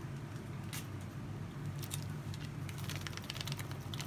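Faint, scattered squelches and ticks of a gloved hand kneading soft, sticky cookie dough in a plastic bowl, over a steady low hum.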